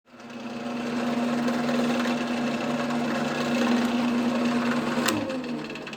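Wood lathe running with a steady motor hum as a resin-and-wood bowl spins on the chuck. About five seconds in there is a sharp click and the motor's pitch slides down as the lathe is switched off and spins down.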